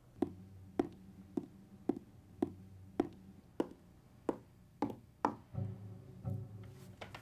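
Suspense film score: a steady pulse of sharp percussive hits, about two a second and quickening slightly toward the end, over a low sustained drone.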